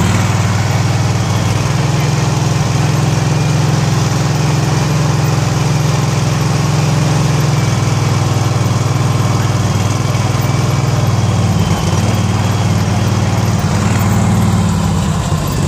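John Deere Gator utility vehicle's engine running steadily as it drives along, heard close up from its cargo bed.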